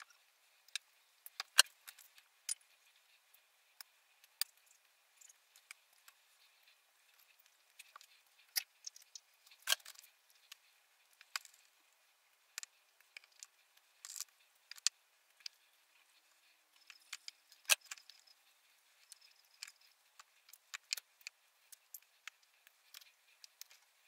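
Metal skewers clicking and tapping irregularly against each other and a metal tray as pieces of marinated meat and onion rings are threaded onto them.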